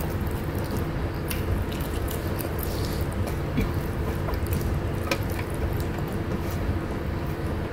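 Eating by hand, close to the microphone: fingers squishing and mixing rice with dendeng (spicy beef jerky) on a plate, then chewing, with scattered small wet clicks over a steady low hum.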